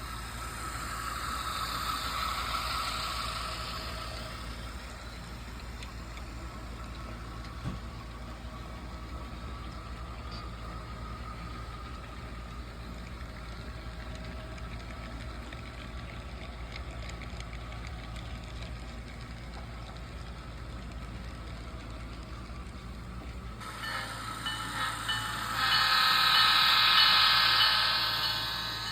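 An HO-scale Athearn GP50's DCC sound decoder plays diesel locomotive sounds through its small speaker over a steady low hum, swelling louder in the first few seconds. Near the end comes a louder chord-like sound of several tones lasting about three seconds.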